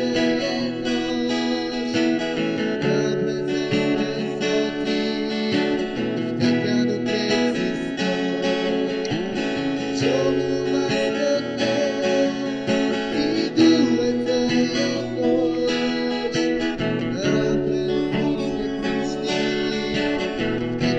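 Acoustic guitar strummed, playing a song with chord changes every second or two.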